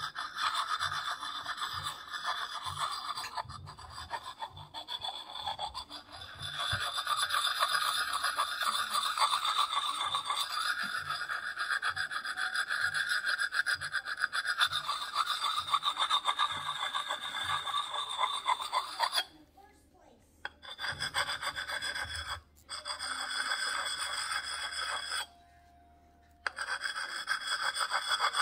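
Coarse side of a Lansky puck sharpening stone scraped in quick strokes along a hatchet's steel edge: a continuous gritty rasping. It stops briefly three times in the last third.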